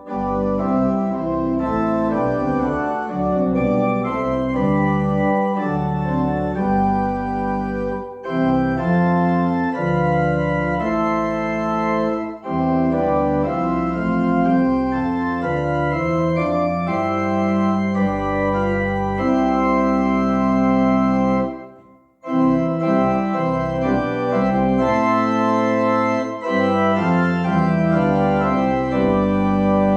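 Organ playing a slow piece of held chords that change every second or two, with short breaks between phrases and one brief silent pause about two-thirds of the way through.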